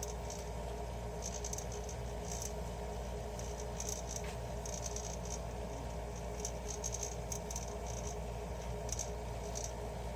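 Hitachi RD-16FR dehumidifier running with a steady hum from its compressor and fan, overlaid by irregular light rattling clicks that come in clusters. This rattling and knocking is an abnormal noise that sets in about a minute after the compressor starts, and it came back on a replacement unit.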